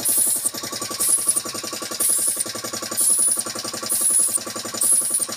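Paint spray gun hissing in short bursts about once a second as it is triggered, over a steadily running air compressor with a rapid, even pulse.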